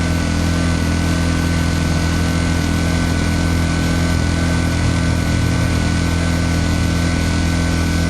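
Yamaha EF1000iS inverter generator's 50 cc four-stroke engine running steadily at full speed in its warm-up cycle, before dropping to economy idle. It reads about 66–67 dB at 10 feet.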